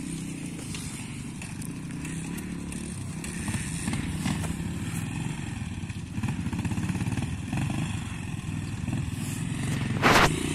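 Off-road motorcycle engine running and revving unevenly as a dirt bike works its way up a steep climb, swelling louder in places. A brief loud burst of noise comes near the end.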